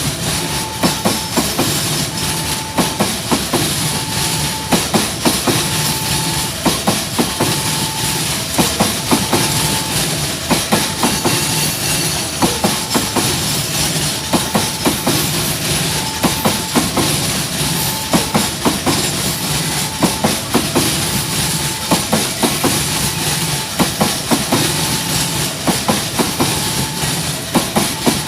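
Train cars passing close by on the track, their wheels clacking over rail joints in a steady, repeating rhythm, with a high whine that comes and goes about once a second.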